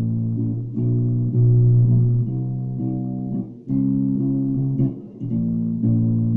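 Ibanez Jumpstart four-string electric bass playing a slow line of sustained plucked notes, a new note every second or so, with a brief break about five seconds in. Recorded on a phone, it sounds thin, with the deepest bass missing.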